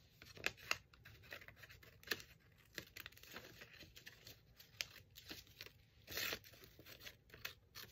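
Scissors snipping through a sheet of paper in a run of short, irregular snips, with the paper rustling; a longer, louder rustle about six seconds in.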